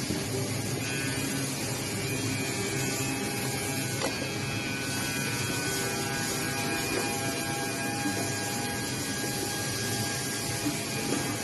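Goodtech multi-function CNC drilling, milling and tenoning machine running steadily, a mechanical hum with faint steady whines from its spindle motors and a single small click about four seconds in.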